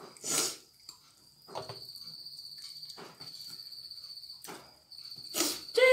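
Crickets chirping steadily in the background, a thin high pulsing trill, while chicken wings are being eaten: a short loud burst of mouth and eating noise about half a second in and softer ones later.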